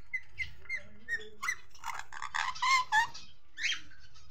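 Indian ringneck parakeets calling: a quick run of short, high chirps, about three a second, then louder, harsher squawks in the middle and one more near the end.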